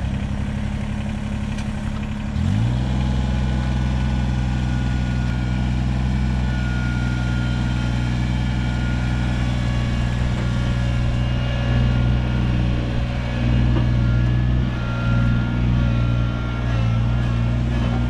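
Kubota BX23S compact tractor's three-cylinder diesel engine running. About two seconds in it is throttled up, then held at a steady higher speed as the tractor drives.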